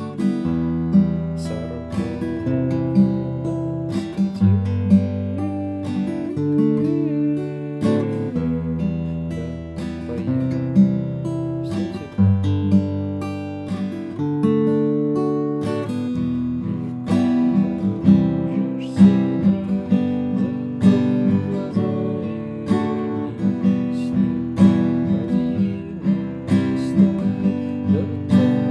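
Acoustic guitar strumming a chord accompaniment, with the chords changing every second or two.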